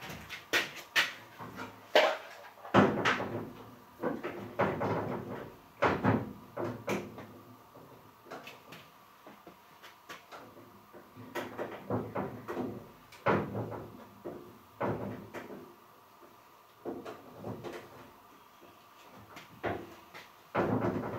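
Irregular clicks, taps and knocks of plastic and metal parts being handled as a loop handle and its clamp pieces are fitted onto a pole chainsaw's shaft, with a quieter spell near the middle.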